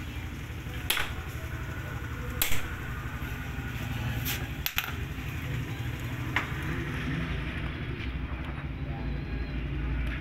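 Sharp metal clicks and knocks from hand tools working at a motorcycle's clutch arm, about five in all, over a steady low rumble.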